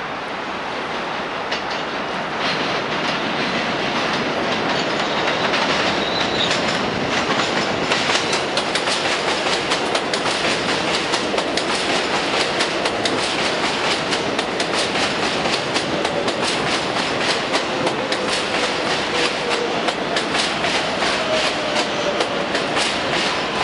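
New York City Subway 7 train arriving and running past close by, its wheels clacking rapidly over rail joints and growing louder as it nears. In the second half a faint motor whine falls in pitch as the train slows.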